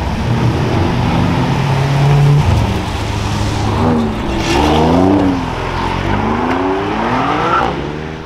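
Performance car engine running steadily, then accelerating hard past: the revs climb in rising sweeps, each broken off by an upshift, about halfway through and again near the end.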